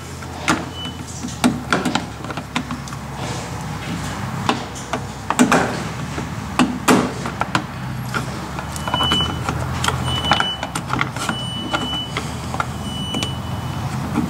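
Plastic push-in trim clips being worked loose and popped out from under a Jeep Gladiator's plastic bumper cover, with irregular clicks and knocks of the plastic as the panel is handled, over a steady low hum.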